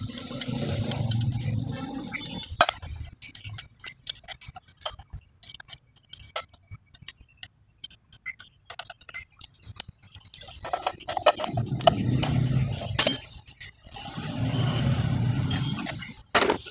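Metal hand tools clinking and tapping while the cylinder head nuts of a motorcycle engine are loosened with a spanner, with a sharp metallic click near the end. Three stretches of low rumble of about two seconds each come at the start, around eleven seconds in and around fourteen seconds in.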